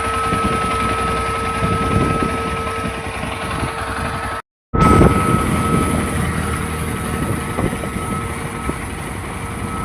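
Yezdi Adventure's single-cylinder engine running with a constant high-pitched whistle over it, a steady tone that the owner says started after the bike's second service. The sound cuts out for a moment about four and a half seconds in.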